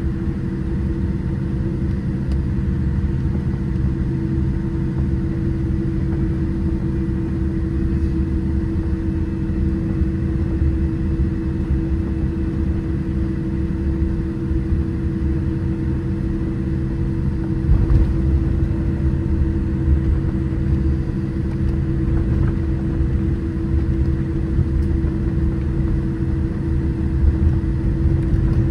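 Cabin noise of a Boeing 787-8 airliner taxiing: a steady low rumble from the engines at taxi power and the ride over the taxiway, under a constant hum. A few slightly louder bumps come about two-thirds of the way through.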